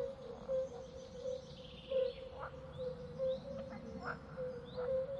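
Birds chirping: many short, quick calls, some rising, scattered through, over a steady low pulsing drone.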